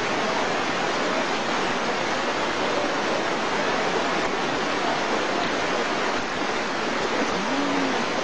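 Fast, swollen floodwater rushing, a steady even noise of a turbulent current.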